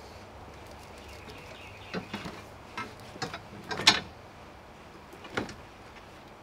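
Steel cart frame parts knocking against each other and the plastic tub as they are handled and pulled out of the packing: half a dozen separate knocks, the loudest just before four seconds in.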